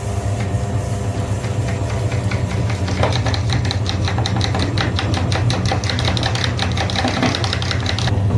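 A grinder's motor running with a steady low hum while it crushes something in rapid crackling clicks. The crackling stops shortly before the end while the motor keeps running.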